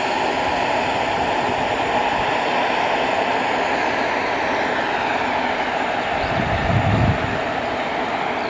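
Freight train of open-top wagons rolling away along the track: a steady rushing of wheels on rail, with faint high ringing tones slowly falling in pitch. A short low rumble rises about six and a half seconds in.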